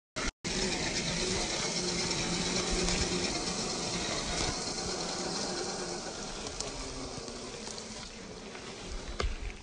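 Electric motor and gear drivetrain of a 1/10-scale RC crawler truck, a steady whir with a faint hum, slowly fading away.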